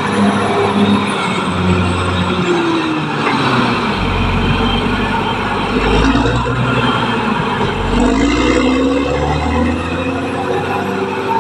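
Caterpillar D6R XL bulldozer's diesel engine running hard; its pitch drops about three seconds in, a deeper rumble holds through the middle, and the pitch climbs back near the nine-second mark.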